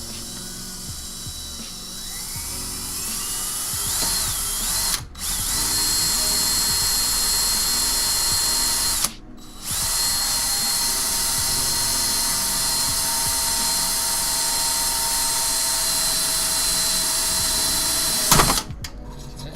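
Electric drill running and drilling pilot holes in a PC case, its whine winding up over the first few seconds, cutting out briefly twice about five and nine seconds in, and stopping sharply near the end.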